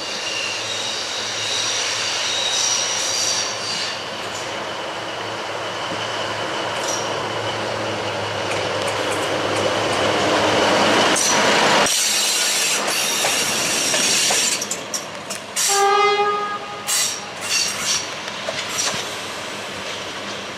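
Diesel-hydraulic shunting locomotive running light: steady engine drone with high wheel squeal on the curving yard track, growing louder as it comes past. Later a short horn toot and a few metallic clanks.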